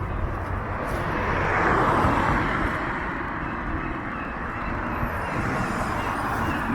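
A vehicle passing on the street: its noise swells to a peak about two seconds in and slowly fades, over a steady low rumble of town traffic.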